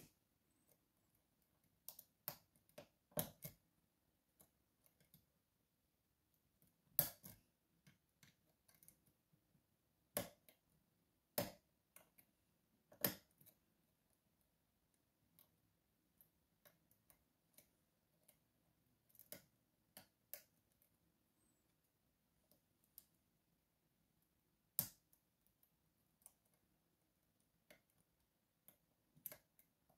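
Lock pick and tension tool working the sliders inside an Evva 3KS lock: faint, irregular metal clicks and taps, a few of them sharper, with near silence between.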